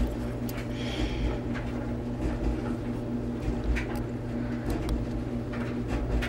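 A few light clicks and scrapes as a small flat screwdriver tip pries the spring off a small plastic threading gear. A steady low electrical hum runs underneath.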